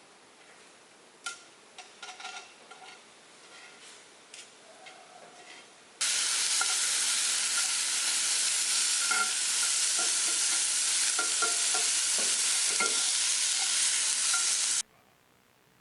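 A steady loud sizzling hiss with small pops, like food frying, starts abruptly about six seconds in and cuts off suddenly near the end. Before it, only faint scattered clicks and knocks.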